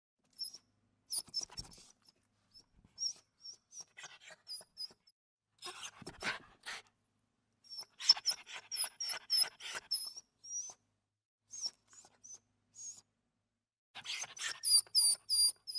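Small dog whimpering: a series of short, high-pitched squeaky whines in quick clusters, with breathy noises mixed in.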